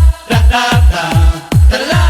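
Hardbass dance track: a fast, heavy kick drum thumping about three times a second, each thump falling in pitch, under a steady synth line.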